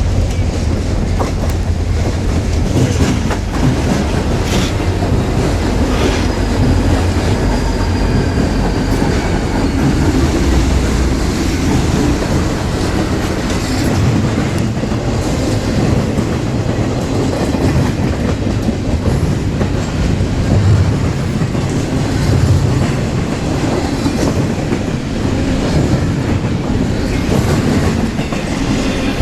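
A train rolling past close by: a steady heavy rumble of the cars, with wheels clacking over the rail joints and a faint wheel squeal a few seconds in.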